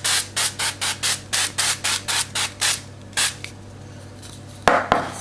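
Olive oil spray bottle spritzing the chicken, a quick run of short hisses about four or five a second, then one more spritz a little later. A single knock near the end.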